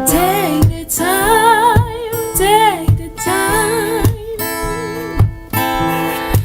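A song with strummed acoustic guitar chords under a singing voice that holds long notes with a wide vibrato.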